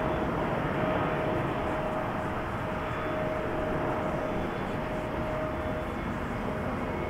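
Boeing 777-300ER's twin GE90-115B turbofans at departure thrust: a steady jet roar with a held whining tone, slowly fading as the airliner climbs away.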